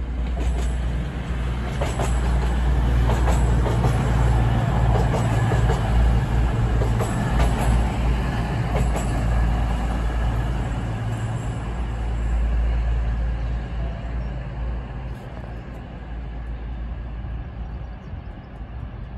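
East Midlands Railway Class 222 Meridian diesel multiple unit passing close by: its underfloor diesel engines give a steady low drone under the rumble of the wheels, with sharp clicks as the wheels cross rail joints and points. The sound fades over the last several seconds as the train moves away.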